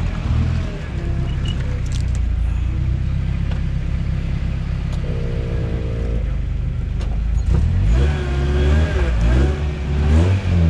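Toyota truck's engine running low and steady while driving off-road, with a short held squeal about halfway through and wavering higher tones over the last few seconds.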